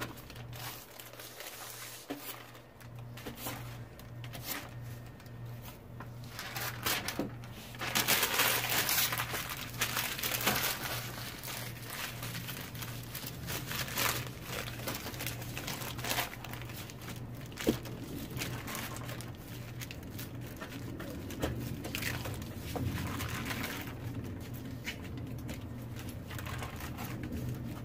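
Magazine paper crinkling as it is crumpled up, dabbed onto wet spray paint and pulled off again, in irregular bursts, most dense about eight seconds in.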